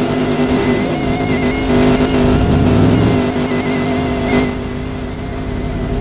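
Dodge Hellcat's supercharged 6.2-litre HEMI V8 held at high revs during a drift, its note fairly steady. About four and a half seconds in there is a brief sharp sound and the engine note eases off.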